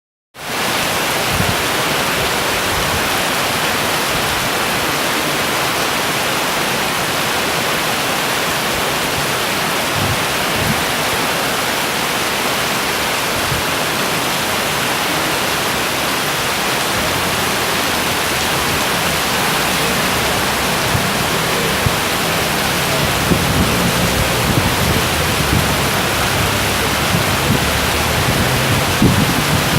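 Heavy rain pouring down in a steady, loud hiss. Irregular low rumbles come in during the second half.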